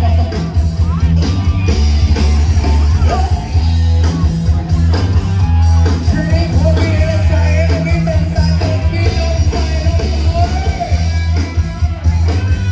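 Band music: singing over guitar and a heavy, steady bass line.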